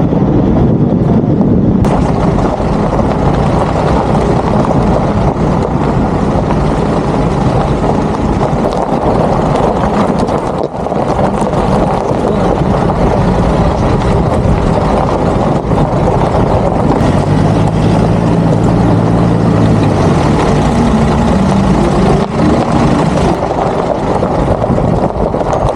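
Off-road vehicle driving over a rough gravel mountain road: a loud, steady rumble of engine and tyres on gravel, with the engine note standing out for a few seconds about two-thirds of the way through.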